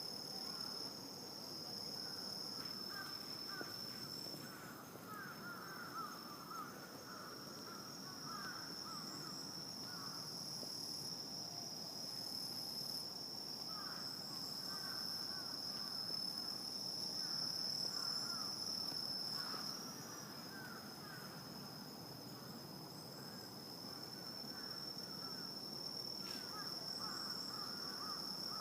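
Night insect chorus: a steady high-pitched trill that never stops, with bouts of lower, scratchy chirping coming and going every few seconds.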